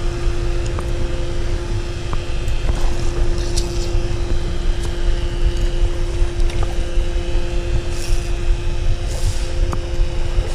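Steady rush of fast, muddy creek water around the wader's legs, with heavy wind rumble on the microphone and a faint steady hum underneath.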